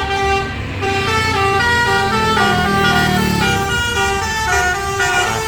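Telolet bus horn playing a quick tune of stepped notes, each held a fraction of a second, over a low rumble.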